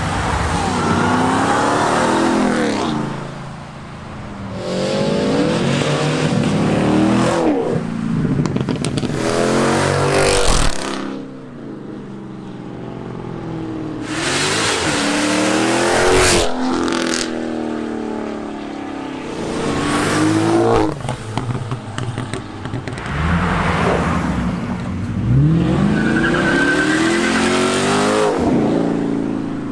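Several cars accelerating hard past one after another, each engine revving up with its pitch climbing and dropping back at each upshift. There are a couple of sharp cracks among the passes.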